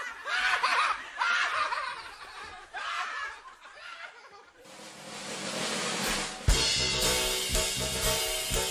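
Laughter in short bursts, then, about six and a half seconds in, upbeat music with drums starts on a sharp hit and carries on.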